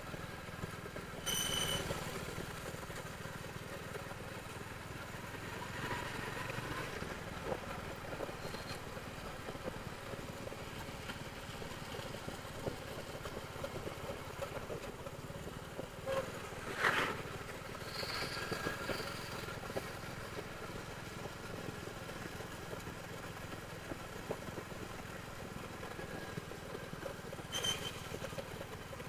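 Royal Enfield Hunter 350's single-cylinder engine running steadily through its stock exhaust. A short high-pitched sound comes about a second in and again near the end, and a louder sharp noise about halfway through.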